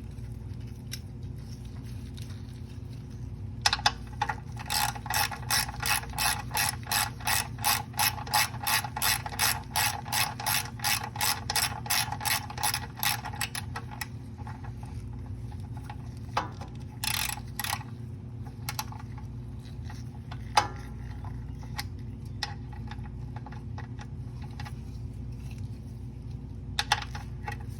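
Socket ratchet wrench clicking in a quick, even run of about three clicks a second for about ten seconds, then a few single clicks near the end, as a bolt is worked during an oil change. A steady low hum underlies it.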